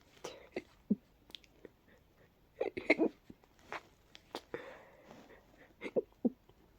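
A congested person hiccupping over and over: short, sudden catches of breath, some of them sneeze-like, with the loudest cluster about three seconds in.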